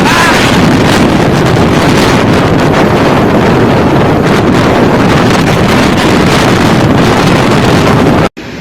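Blizzard wind blasting the microphone: a loud, steady rush of wind noise. It cuts off abruptly near the end, and quieter, gustier wind follows.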